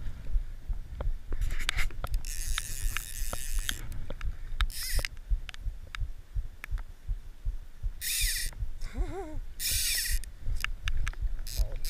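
Fly reel's click-pawl drag ratcheting in several short spells of rapid clicks, the longest about two seconds in, as line goes on or off the reel while a carp is being played. Underneath runs a low, throbbing rumble of wind and water noise on the microphone.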